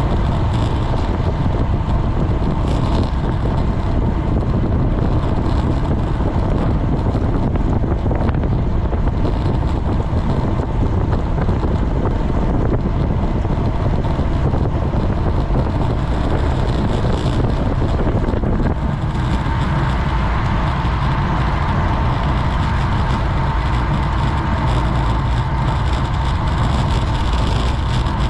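Wind buffeting a GoPro's microphone on a racing road bike at speed, a loud steady rush heaviest in the low end, mixed with tyre and road noise.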